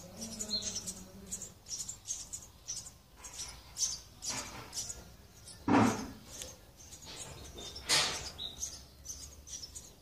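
Sparrows cheeping at a nest: many short, high, rapid chirps, the begging calls of chicks being fed by a parent at the nest entrance. Two brief louder bursts break in, one about halfway through and another about two seconds later.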